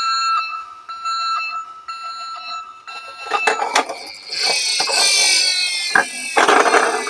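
Electronic toy ambulance siren sounding in steady tones that break off and resume, then a falling sweep of tone, with clicks and rattles of small die-cast cars rolling down a slope.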